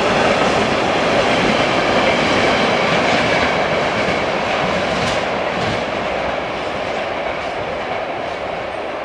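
Freight train of tank wagons rolling past, a steady noise of wheels running on the rails that slowly fades as the end of the train goes by.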